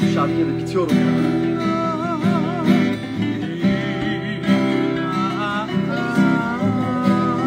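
Two acoustic guitars strummed together accompanying a man singing a slow song with a wavering vibrato.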